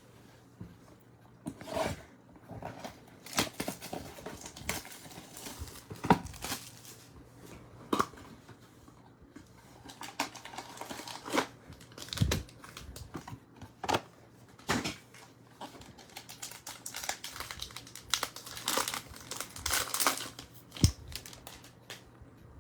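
A pack of trading cards being torn open and its wrapper crinkled, with irregular crackles and clicks as the cards are handled, and a faint steady hum underneath.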